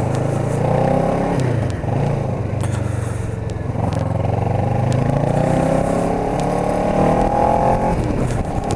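Kawasaki Ninja 650R's parallel-twin engine pulling under the rider, its pitch rising twice as it accelerates, dropping back about a second and a half in and again near the end.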